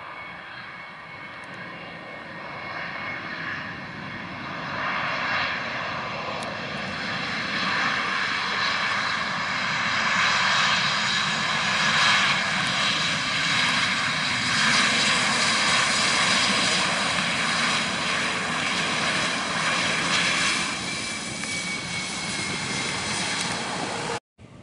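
Twin jet engines of an Airbus A320-family airliner running loud as it rolls past on the runway, a steady roar with a whine that swells, then eases with a falling pitch near the end before the sound cuts off abruptly.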